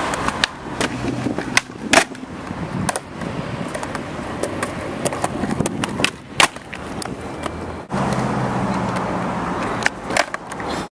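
Skateboard wheels rolling over paving stones, with several sharp clacks of the board striking the ground and ledge as tricks are popped and landed.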